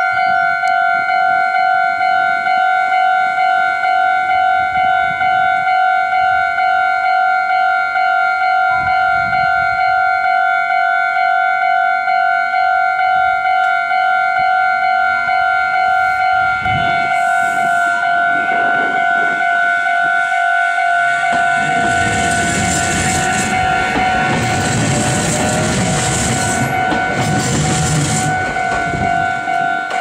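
Japanese electronic level-crossing bell ringing in a steady, fast repeating ding. A Meitetsu electric train runs over the crossing from about 21 seconds in, its wheels rumbling and clattering on the rails until near the end.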